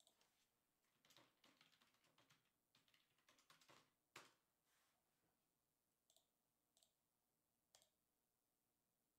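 Very faint clicking of a computer keyboard and mouse: a quick run of keystrokes over the first few seconds, then a few single clicks spaced out.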